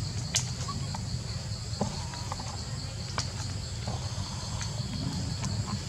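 Steady high-pitched trilling of an insect chorus, pulsing evenly, broken by a few sharp clicks, the loudest just after the start and another about three seconds in.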